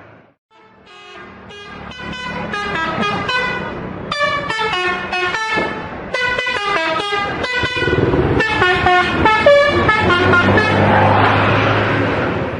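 Telolet multi-tone bus air horn playing a rapid melody of short notes that grows louder as the bus approaches. The bus's engine rumble and a rush of passing noise rise near the end.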